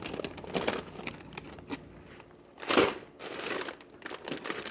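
Plastic food packaging crinkling and rustling as it is handled, with scattered small clicks and one louder rustle a little under three seconds in.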